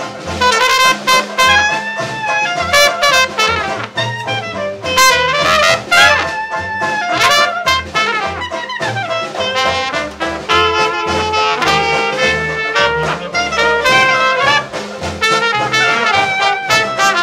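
A traditional jazz band playing live. Trumpet and clarinet weave melody lines together over a plucked double bass and snare drum.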